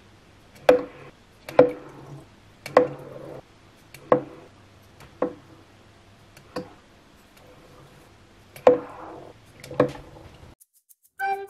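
Bath bombs dropped one at a time into a glass tank of water, each landing with a sharp plop. There are eight in all, at about one a second, with a longer gap before the last two.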